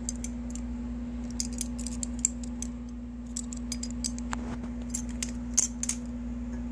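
Irregular light metallic clicks and clinks as a practice butterfly knife is handled, over a steady low hum.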